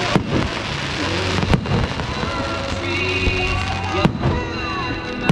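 Aerial fireworks shells bursting, three sharp booms spread a second or two apart, with music playing underneath.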